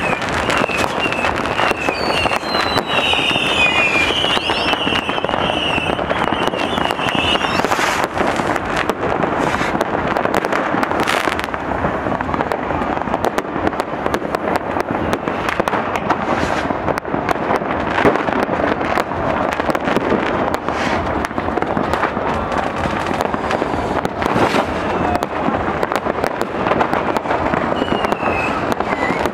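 New Year's Eve fireworks and firecrackers going off all around in a dense, unbroken crackle of bangs. A pulsing, wavering whistle sounds through the first several seconds.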